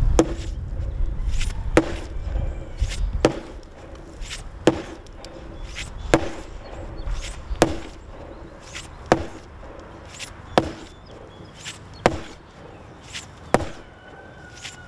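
Blows striking wood in a steady rhythm, about one every second and a half, over a low rumble that fades after the first few seconds.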